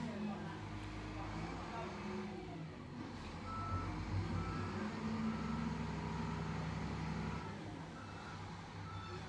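SDLG wheel loader's diesel engine running as the machine manoeuvres, with a reversing alarm beeping repeatedly from about a third of the way in.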